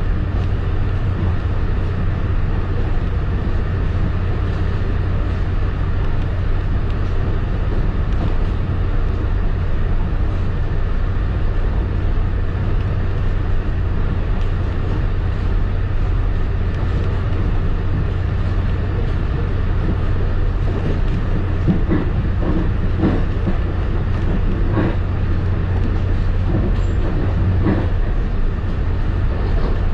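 Commuter rail passenger coach running at speed, heard from inside: a steady low rumble of the train on the track, with a few sharper clacks over the second half.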